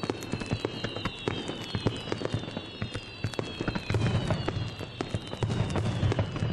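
Fireworks finale: a dense crackle of many small bursts, with deep booms of shells breaking from about four seconds in. Several high firework whistles sound together, sliding slowly down in pitch.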